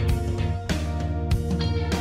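Background music: a pop song with guitar, a steady bass and a regular drum beat, with no singing in these seconds.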